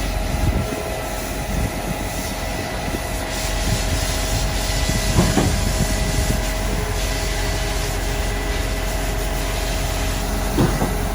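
A machine running steadily: a constant engine hum with a steady whine and a hiss over it, with a few faint knocks.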